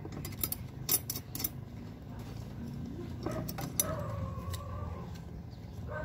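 Steel bracket pieces and bolts clinking and knocking together as they are handled and fitted by hand, with a cluster of sharp clicks in the first second and a half.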